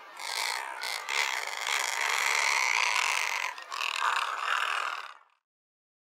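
Razorbill calling: a rough, noisy growling sound that breaks briefly about three and a half seconds in and stops just after five seconds.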